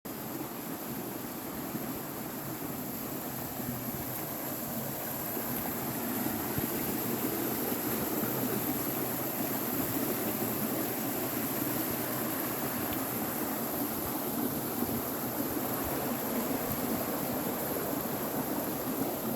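Waterfall and stream water rushing, a steady roar that grows a little louder over the first six seconds or so.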